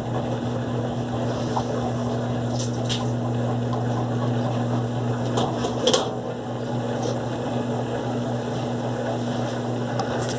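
Electrolux LTE12 top-loading washing machine spinning, a steady hum and rumble as the tub shakes on its suspension with an unbalanced load of dry clothes piled on one side. A few short knocks or rattles come through, the loudest about six seconds in.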